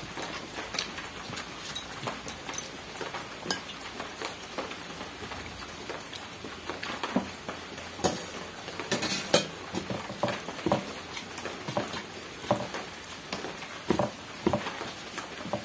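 Eating by hand from a steel plate: fingers mixing and squeezing rice with curry, chewing and lip-smacking, and scattered small clinks and taps on the steel plate and bowls, busiest about halfway through.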